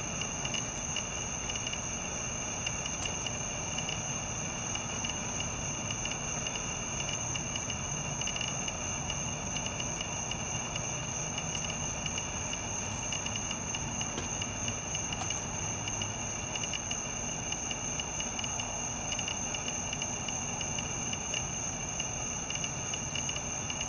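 Steady insect chorus: a constant high-pitched trilling with a second, lower trill beneath it.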